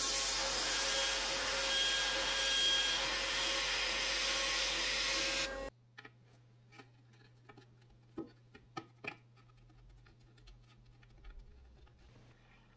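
CNC router spindle with a 1/8-inch compression bit cutting birch: a loud, steady whirring that cuts off suddenly about six seconds in. Then faint rubbing and a few light clicks as the wavy padouk inlay strip is handled against the birch board.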